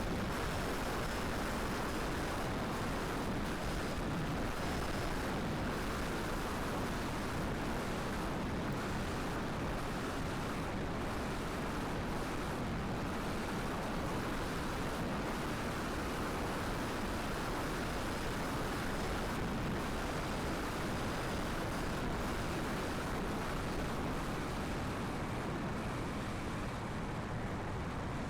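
Strong wind buffeting the microphone: a steady rushing roar with heavy low rumble and no let-up.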